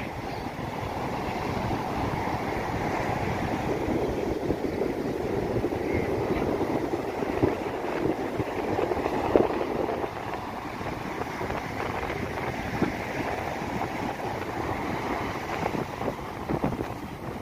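Sea surf breaking on the shore, with wind buffeting the microphone.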